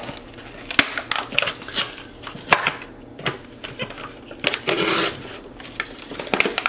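A capuchin monkey handles a plastic snack canister and digs into it, making a run of clicks, crackles and rattles, with a longer rustling burst about five seconds in.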